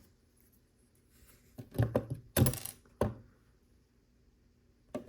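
Small plastic LEGO pieces clicking and clattering as they are handled and pressed together. There are a few short knocks and rattles between about one and a half and three seconds in.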